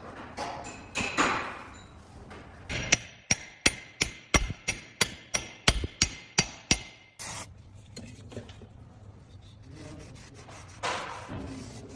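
A hammer striking metal about a dozen times in a quick, even run, roughly three blows a second, each with a brief metallic ring, during work on a Jeep Wrangler JL's front axle input shaft oil seal. Softer scraping and handling noises come before and after the hammering.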